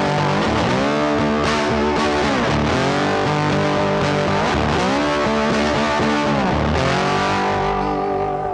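Background music: distorted electric guitar playing over a steady band backing.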